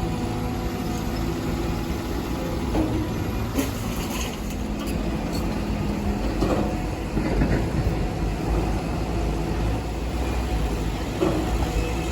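Heavy diesel excavator engine running steadily, with a few short metallic clanks and knocks over it.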